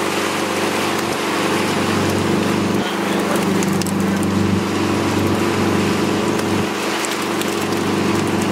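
A fishing trawler's engine running steadily underway, a constant low drone, with wind and the rush of the wake behind it.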